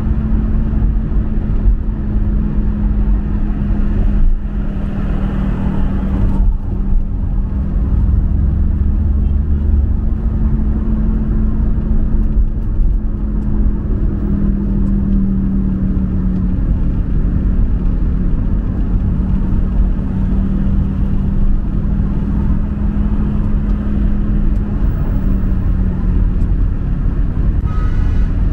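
Motor vehicle running at a steady speed: a constant engine hum that holds nearly one pitch, shifting only slightly, over a heavy low rumble of road noise.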